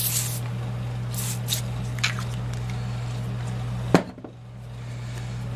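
Short hissing spurts of lubricant applied to the threads of a bolt-and-bushing gear puller, with a sharp knock about four seconds in, over a steady low hum.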